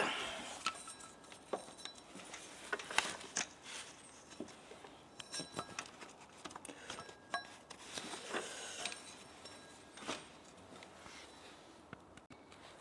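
Hands working a rubber timing belt onto the crankshaft pulley and around the tensioner of a Toyota 4A-FE engine: quiet, irregular light clicks, taps and rustling of belt, fingers and sleeve against the metal parts.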